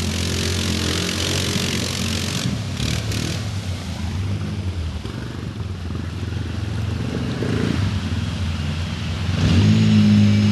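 Quad (ATV) engine running as it churns through a muddy puddle, with splashing, spattering mud over the first two seconds or so. The engine then settles to a quieter steady drone, and a louder steady hum comes in about nine and a half seconds in.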